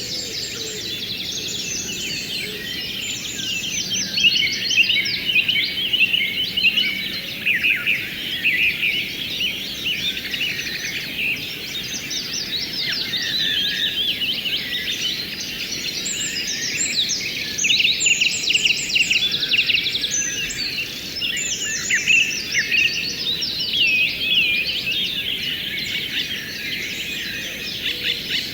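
A chorus of many songbirds chirping and singing at once, dense overlapping quick chirps and trills, over a faint low rush of flowing water.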